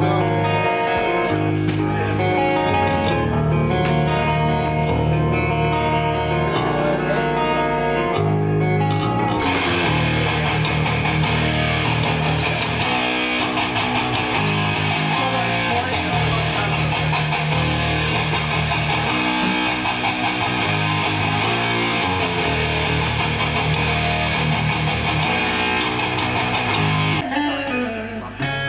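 Amplified electric guitar and bass played loud during a band sound check, with low held notes changing every second or two. A brighter, hissier layer joins about nine seconds in and drops out near the end.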